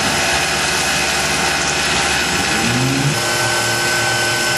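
Tormach PCNC 1100 CNC mill running its chamfering pass: the spindle runs steadily under the hiss of the mist-coolant air blast. A steady higher whine joins about three seconds in.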